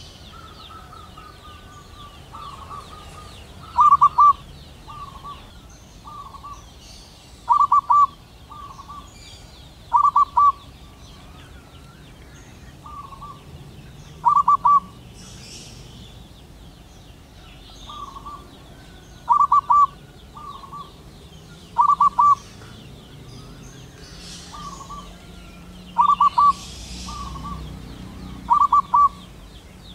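Zebra dove singing: short bursts of rapid, staccato cooing notes, repeated every few seconds, some bursts loud and some soft.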